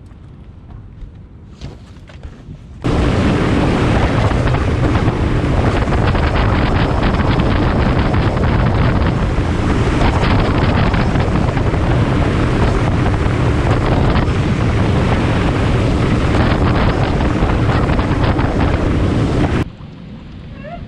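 Bass boat running fast across open water: a steady outboard engine drone under heavy wind buffeting on the microphone and the rush of water along the hull. It starts suddenly about three seconds in, after a quieter stretch, and cuts off about a second before the end.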